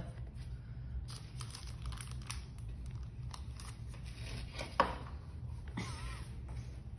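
Parchment paper crinkling and rustling as it is handled and pulled at the edges of a sheet pan holding a soft sponge cake, with a single sharp knock about five seconds in.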